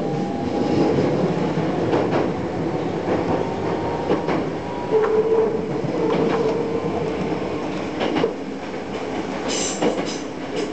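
Electric train running, heard from inside the car: a steady rumble with wheels clicking over rail joints about every two seconds, a held tone for a moment about five seconds in, and a few brief high squeals near the end.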